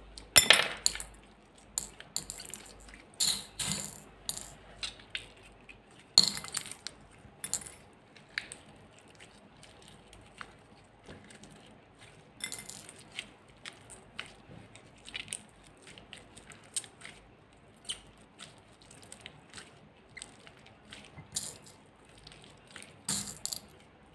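Glossy slime squeezed and kneaded by hand, making irregular sticky pops, clicks and crackles, loudest in clusters about a second in and again around the middle and near the end.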